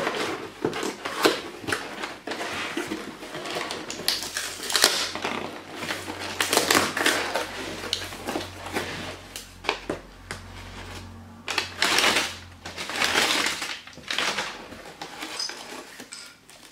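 A cardboard shipping box torn open by hand, with crumpled brown kraft packing paper rustled and pulled out: a run of irregular tearing, crackling and rustling bursts.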